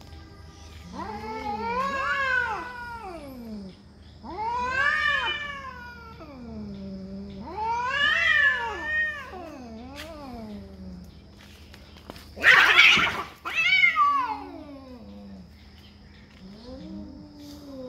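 Two domestic cats in a territorial standoff, yowling at each other in long wails that rise and fall in pitch, three of them in the first ten seconds. About twelve and a half seconds in comes a short, loud hiss, the loudest sound, followed by another yowl and lower growling near the end.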